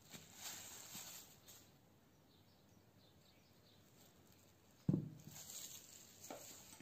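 Soft rustling of a plastic-gloved hand handling dough, then about five seconds in a glass bowl is set down on the table with a single dull thud, followed by a lighter knock.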